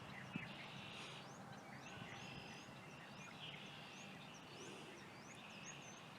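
Faint outdoor spring ambience: small birds chirping over and over with short, high, rising notes, over a steady high trill that comes and goes.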